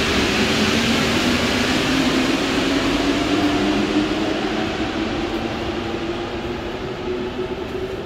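Rubber-tyred Paris Métro Line 1 train pulling out of the station: a steady rumble with a low motor whine under it, fading away over the last few seconds.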